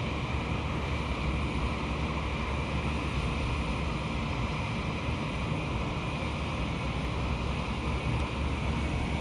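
Steady low hum and rumble of a bank of outdoor air conditioner units running, with a faint high whine held throughout.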